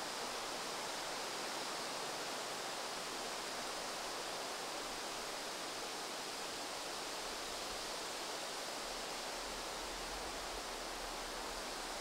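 Steady outdoor ambience: an even hiss with no calls or taps standing out, and a faint low rumble coming in during the second half.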